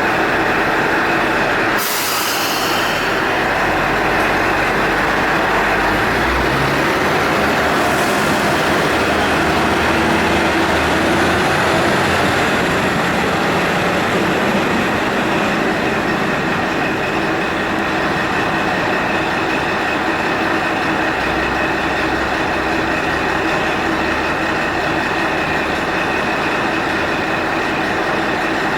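Diesel railcar pulling away, its engine running steadily under power for the whole stretch, with a short hiss about two seconds in.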